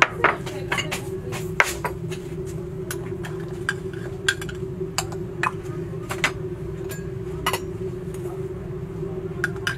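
Irregular sharp clinks and knocks, a few each second, over a steady low hum.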